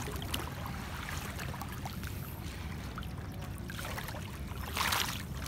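Shallow seawater trickling and lapping as someone wades through it, over a steady low rumble, with a louder splash of water near the end.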